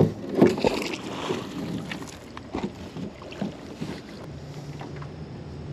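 A series of sharp knocks and clunks, the loudest right at the start, as hard objects are handled in a small boat, then a steady low hum from about four seconds in.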